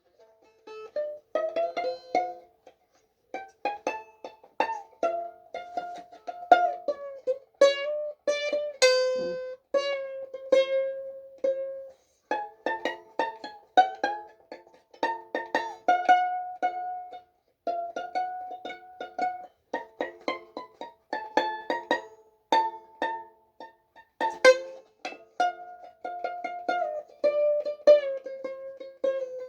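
A plucked string instrument playing a slow solo melody, with rapidly repeated picking on held notes and short pauses between phrases.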